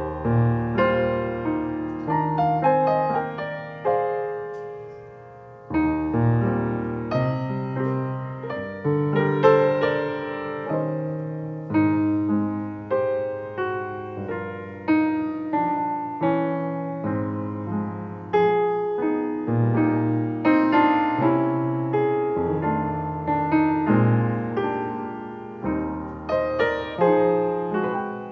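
Solo piano music, single notes and chords that ring and die away, with a short quieter pause about five seconds in.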